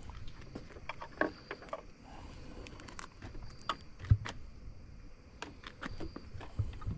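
Small plastic clicks and taps from handling a mirror marker light and plugging in its wiring harness connector, with one louder knock about four seconds in.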